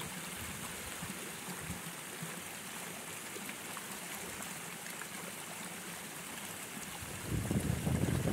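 Steady rushing and splashing of water pouring from pipes into a small pond crowded with rainbow trout that churn the surface. Wind buffets the microphone near the end.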